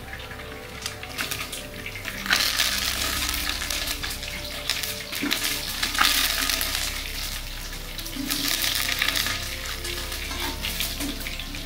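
Tadka for kadhi: cumin seeds, bay leaves and cloves sizzling in hot oil in a large aluminium pot. About two seconds in the sizzle swells much louder as chopped greens go into the oil, and a metal spatula stirs and scrapes the pot.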